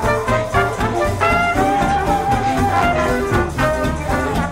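Background jazz music with horns over a steady beat.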